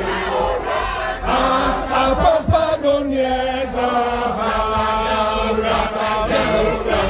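A large mixed group of men and women singing a school anthem together, many voices holding sustained notes.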